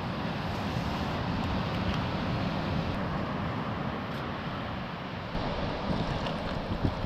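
Steady rushing of wind buffeting the microphone, with a couple of light knocks near the end.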